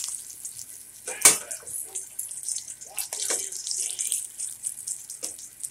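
Onion wedges sizzling in hot oil in a stainless steel frying pan, a steady crackling hiss, with one sharp knock about a second in.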